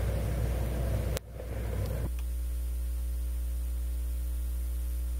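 Background room noise cuts off with a sharp click about a second in, leaving a steady electrical mains hum with hiss.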